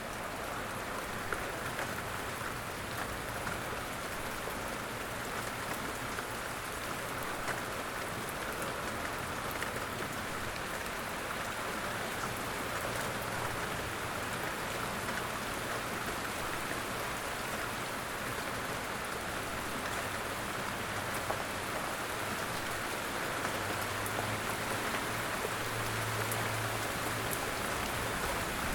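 Light rain falling steadily, a dense even patter with a few single drops ticking out louder now and then.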